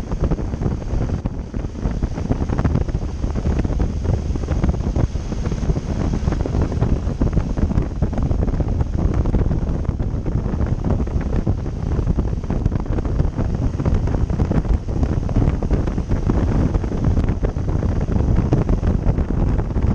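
Steady, loud wind buffeting on the microphone, as from a camera on a moving motorcycle, heaviest in the low rumble with no clear engine note standing out.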